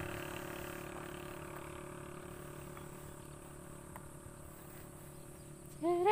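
A passing vehicle's engine and tyre noise, fading steadily as it moves away. Near the end, a voice starts singing a tune.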